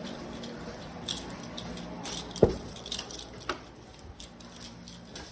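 Faint trickling and dripping of water as a backed-up utility wash tub drains, with scattered small ticks and one sharp knock about two and a half seconds in.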